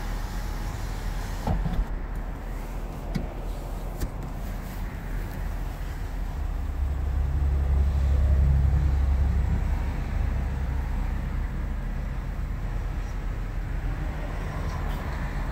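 The 2009 Cadillac Escalade ESV's V8 engine running, heard from inside the cabin as a steady low rumble that swells louder for a few seconds in the middle. A few light clicks come in the first few seconds.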